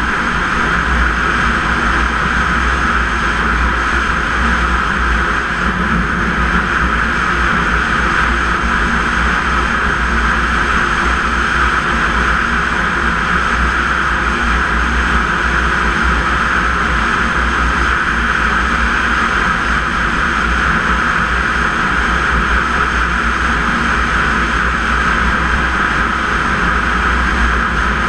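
Snowmobile engine running steadily at trail-cruising speed, an even drone with no change in pitch, over a heavy low rumble of wind on the microphone.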